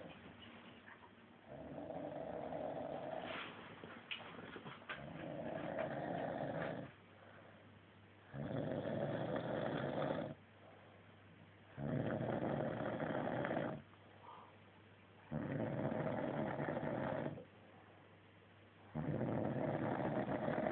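A man snoring heavily: six loud, rasping snores of about two seconds each, repeating roughly every three and a half seconds, with quiet breathing gaps between them.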